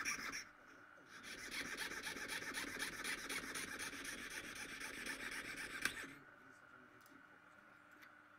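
Jeweler's piercing saw cutting mother-of-pearl: quick, even rasping strokes, several a second. The sawing pauses briefly just after the start, resumes about a second in, and stops with a click about six seconds in.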